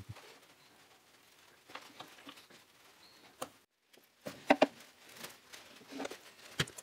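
Scattered metallic clicks and clinks of a socket wrench and loose nuts and bolts as the old master solenoid is unbolted from its mounting bracket under a golf cart, with a quick run of clicks about four and a half seconds in and a few more near the end.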